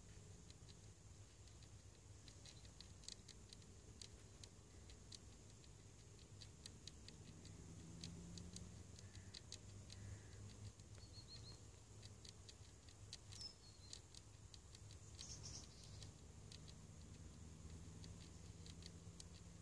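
A common wasp (Vespula vulgaris) rasping wood fibres off a weathered wooden rail with its mandibles to make nest paper: faint, irregular dry scratching ticks in small clusters, over a low steady hum.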